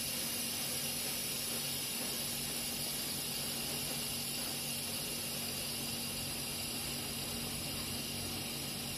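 Steady hiss of CO₂ gas flowing through the just-opened valves of a supercritical CO₂ extraction system, with a constant machine hum underneath. This is the pressure-equalizing step of shutdown, as gas passes from the extractor to the separators; the hiss eases slightly over the stretch.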